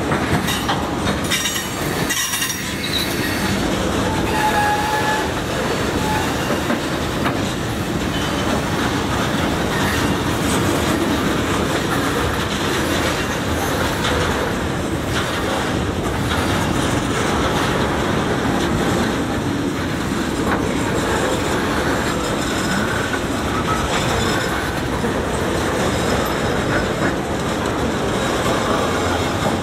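A freight train of loaded centerbeam lumber flatcars rolling past, its wheels rumbling and clacking steadily on the rails, with brief wheel squeals now and then.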